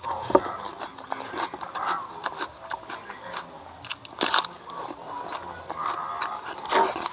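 A person biting and chewing crunchy raw green vegetable with rice, with wet chewing and crisp crunches; the loudest crunch comes about four seconds in and another near the end.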